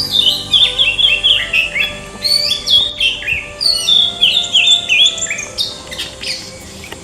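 A songbird singing rapid runs of short, clear, falling chirps, two long bursts in the first five seconds, then a few scattered notes.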